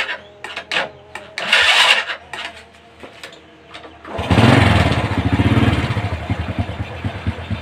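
Honda Grand's small single-cylinder four-stroke engine starting suddenly about four seconds in, running up and then easing to a steady run, preceded by light clicks from handling the handlebar and throttle grip. It is being run to test a newly fitted throttle cable.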